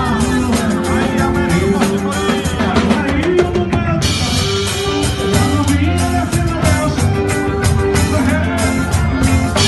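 Live band music: a drum kit keeps a steady beat with cymbal hits under a sung melody. The sound changes abruptly about four seconds in.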